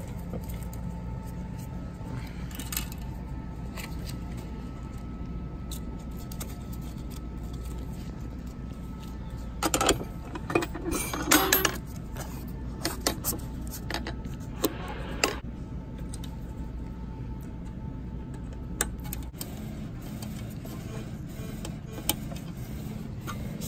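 Metal clatter and clicks of an Aesculap aluminium rigid sterilization container being handled, its latches worked and plastic steam locks pushed into place, with the loudest clatter about ten seconds in and scattered clicks after, over a steady low room hum.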